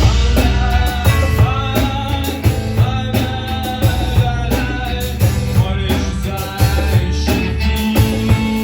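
Live rock band playing an instrumental passage: drum kit keeping a steady beat under bass, with a melodic lead line on top.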